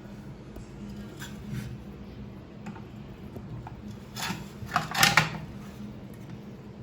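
Plastic flush cover plate of a concealed wall cistern being handled and fitted back over its push rods: light clicks about a second in, then a short run of sharp clattering knocks about four to five seconds in, over a steady low hum.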